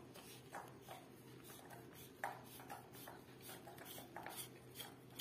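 Faint clicks and light rubbing from a spin mop's blue plastic twist-lock collar being turned and worked loose on its steel handle tube, with a sharper click about two seconds in.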